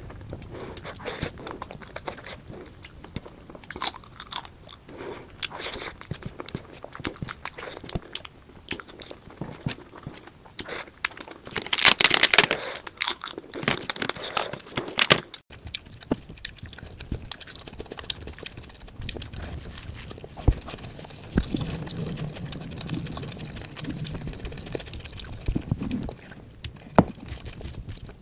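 Close-miked eating sounds: a person chewing and biting food with irregular crunches and wet mouth clicks. There is a louder burst of crunching about twelve seconds in.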